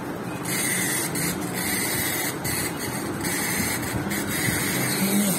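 Clockwork wind-up toy train's spring motor whirring, starting about half a second in and running in several spurts with short breaks.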